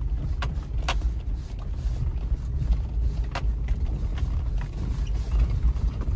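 Inside a Toyota Land Cruiser crawling over a rough dirt two-track: a steady low rumble of engine and tyres, with a handful of sharp creaks and knocks from the body and suspension over the bumps.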